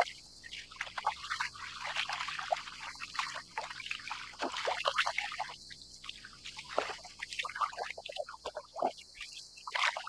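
Small waves lapping, trickling and gurgling against a plastic kayak hull, in irregular little splashes.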